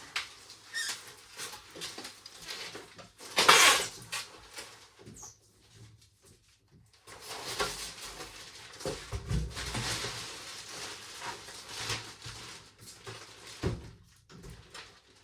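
Unpacking a tumble dryer: packaging being handled, with irregular rustling, rubbing and squeaks. The loudest scrape comes about three and a half seconds in, and there are a couple of dull thumps later on.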